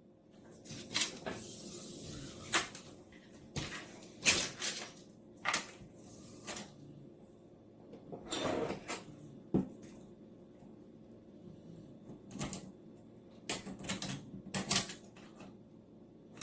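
Irregular clicks and knocks from tools and parts being handled on a desk while measuring and marking, about a dozen sharp taps spread unevenly, with a short scraping rustle near the middle.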